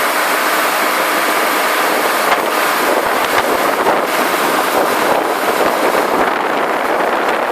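ZGYX452 integrated DTH surface drill rig running: a loud, steady, dense rushing noise with little deep bass. From about two seconds in, a rough irregular rattle sits on top of it.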